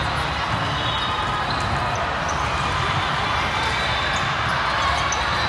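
Steady din of a hall full of volleyball play: a constant murmur of distant voices with scattered faint thuds of balls being struck and bouncing.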